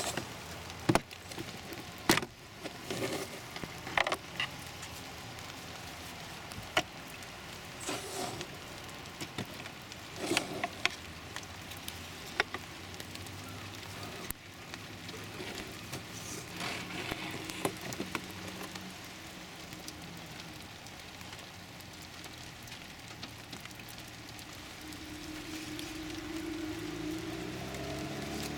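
Scattered sharp plastic clicks and knocks, with rustling in between, as hands work the glove box and the cabin air filter housing and slide out the pleated filter. A low steady hum comes in near the end.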